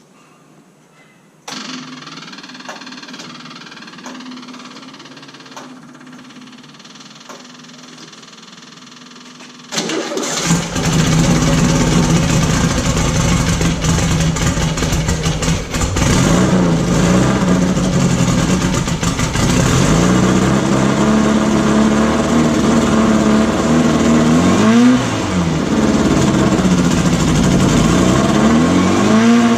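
Air-cooled VW flat-four engine of a beach buggy starting: a steady hum for several seconds, then about ten seconds in the engine catches and runs, revved briefly twice near the end. It is cold and has not been run for a while, running a bit lumpy with a misfire.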